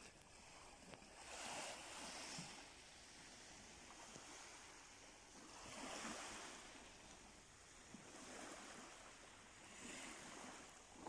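Faint small waves washing onto a sandy shore, swelling softly about every four seconds.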